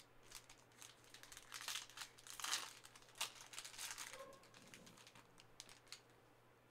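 Plastic-foil wrapper of a Panini Prizm trading card pack crinkling in the hands as the pack is opened: a run of short, faint crinkles, loudest about two and a half seconds in.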